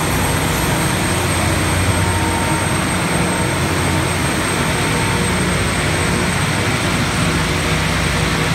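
Loram rail grinder train passing, its grinding stones grinding the rail head as they pass and throwing sparks, with a low engine drone beneath. It is a loud, steady grinding rush. This is routine rail grinding that smooths out irregularities in the track, not a fault.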